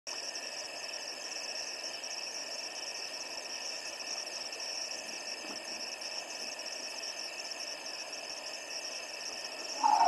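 Steady night chorus of insects, a high-pitched continuous trilling over a faint hiss. Right at the end a hippo's loud call breaks in.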